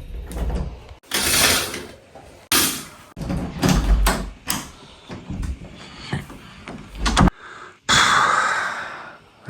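A run of abrupt handling noises: knocks and thumps like a wardrobe door or drawer being opened and shut, mixed with longer rustling and shuffling noises that start and stop suddenly.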